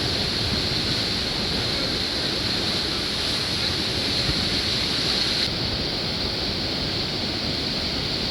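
Rushing whitewater of a grade 3–4 river rapid: a steady, loud wash of water noise. The high hiss drops slightly about five and a half seconds in.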